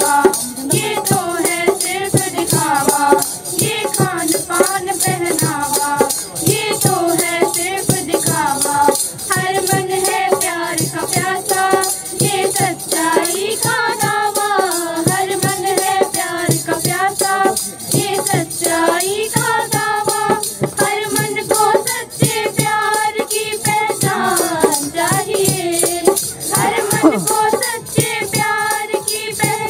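A group of girls singing a song together into microphones, with tambourines shaken in a steady rhythm.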